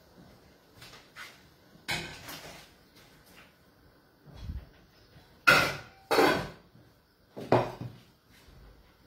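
Crockery and kitchen utensils being handled on a counter: a handful of separate knocks and clatters, the loudest two close together about halfway through.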